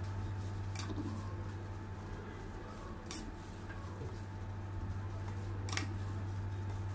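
Handling sounds from a plastic-gloved hand smoothing cream onto a cake on a metal turntable: three short, sharp light clicks, about a second in, about three seconds in and near the end, over a steady low electrical hum.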